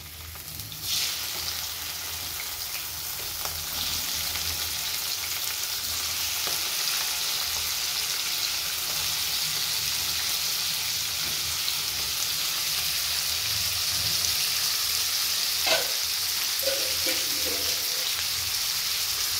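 Raw prawns sizzling in hot oil in a kadhai, the steady frying hiss setting in about a second in and slowly growing louder as more prawns go into the pan. A single clink about three-quarters of the way through.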